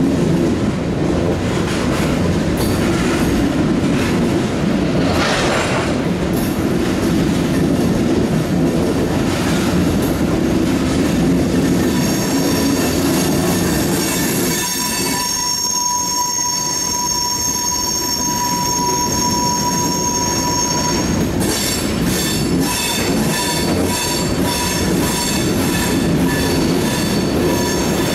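A freight train of fuel and oil tank cars rolling past. A steady low rumble of the wheels with clicks over the rail joints gives way, about halfway through, to wheel squeal: several high steady tones hold for some seconds, then squealing carries on more thinly with clicking toward the end.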